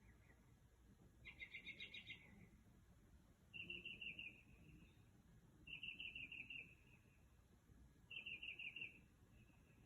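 A bird singing: four short phrases of rapid repeated high notes, each about a second long, coming roughly every two seconds.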